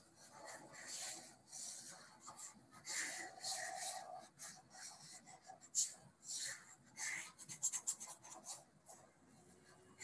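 Stylus tip scratching and rubbing on a pen tablet in a string of short, irregular strokes, as notes are erased and a digit is written. It is faint, with the strokes coming thickest and quickest in the second half.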